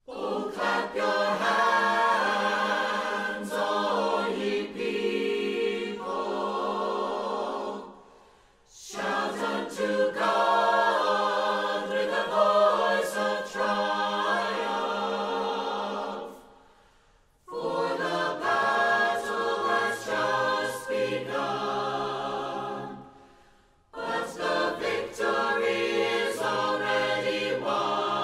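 Choir singing in four phrases, each ending with a brief pause before the next.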